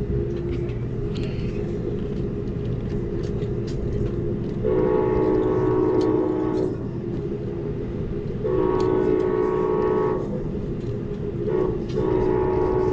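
Train horn sounding the grade-crossing signal: two long blasts, a short one and a final long one. Under it, the steady rumble of the train rolling on the rails, heard from aboard.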